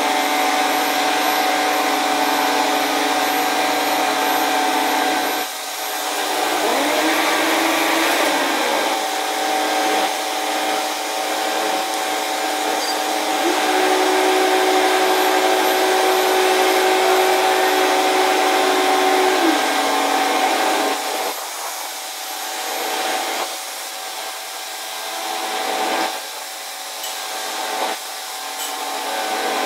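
Steady machine whirring from construction machinery, played back at four times speed: an even hum carrying several held tones. A tone glides up and down briefly about a quarter of the way in, and the sound drops and turns uneven near the end.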